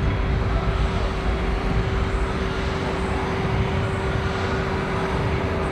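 Car-audio subwoofer system in an SPL competition car playing a sustained, very loud bass tone for a sound-pressure measurement, heard as a steady rough drone with a constant hum-like tone above it.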